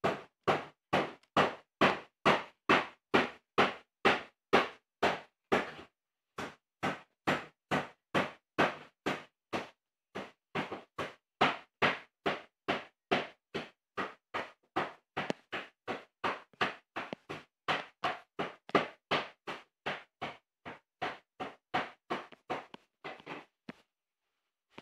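A rapid, even series of short bangs, about two or three a second, that stops shortly before the end.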